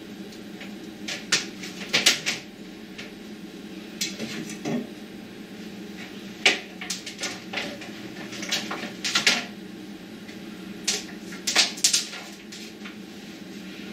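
Scattered light clicks, clacks and knocks of cables, plugs and hard objects being handled and set down, coming in short clusters over a steady low background hum.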